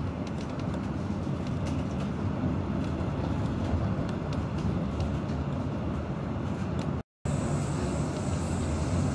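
Steady rumble of a moving regional train heard from inside the carriage, with faint ticks and rattles over it. The sound cuts out completely for a moment about seven seconds in, then the rumble resumes with a thin high whine added.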